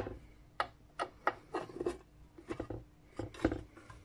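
Irregular small clicks and taps as the lamp head's housing and cover are handled and opened, about a dozen over a few seconds, with a faint steady hum beneath.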